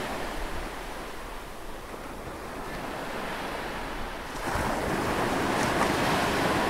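Ocean surf washing on a beach, with some wind on the microphone; it grows suddenly louder about four and a half seconds in.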